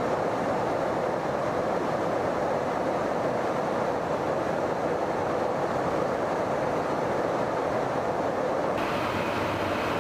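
Steady drone of engines and rushing air inside an aerial refuelling tanker in flight, with a little more hiss near the end.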